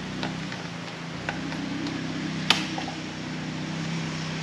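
A few short clicks and taps of a hand tool working under a removed car seat's base, the sharpest about two and a half seconds in, over a steady low hum.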